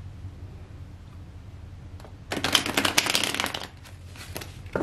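A deck of tarot cards being shuffled: a rapid flutter of card edges lasting about a second and a half in the middle, followed by a single sharp tap near the end.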